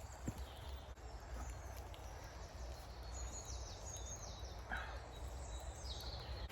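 Woodland ambience: a small bird sings a short run of quick, falling high notes about three seconds in and again near the end, over a steady low rumble.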